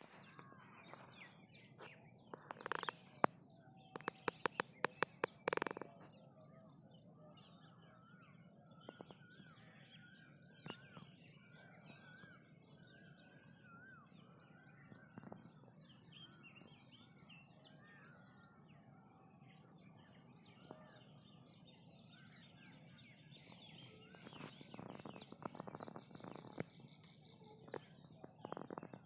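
Morning chorus of small birds chirping and calling over one another. A quick run of sharp clicks, about a dozen in under two seconds, comes about four to six seconds in and is the loudest thing; another cluster of clicks and louder calls comes near the end.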